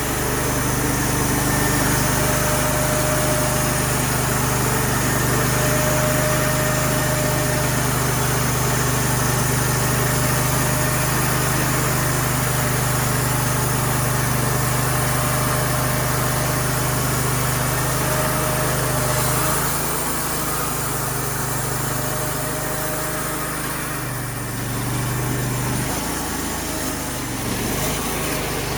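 Sawmill's small engine running steadily with a broad hiss over it, its low note dropping about two-thirds of the way through and picking up again near the end.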